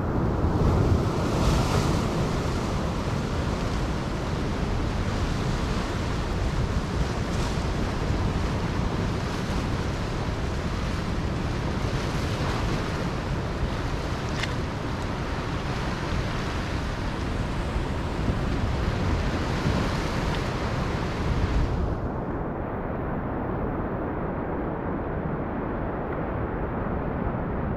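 Ocean surf breaking and washing over the rocks of a jetty, with wind rumbling on the microphone. The higher hiss of the surf drops away about three-quarters of the way through, leaving mostly the wind rumble.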